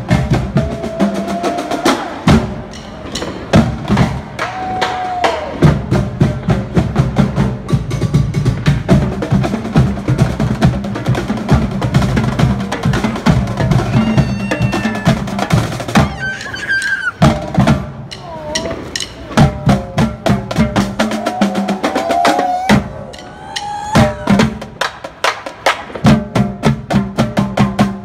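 Live drum corps of snare and tenor drums playing a fast, dense drum cadence with rolls, broken by a couple of short, sparser breaks.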